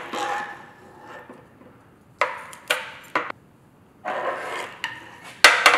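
Steel gearbox parts being handled: gears and synchro hubs clink and slide against the shaft and the steel table. Scraping at the start and again about four seconds in, three sharp metallic clicks around two to three seconds in, and the loudest clatter of clicks just before the end.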